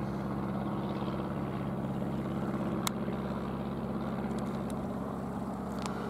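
Piston engine of a light single-engine propeller plane droning steadily overhead, with a couple of short clicks about halfway through and near the end.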